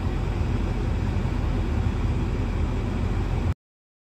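Steady low rumble inside the cabin of a 2004 Honda Accord EX standing still with its engine running. It cuts off abruptly about three and a half seconds in.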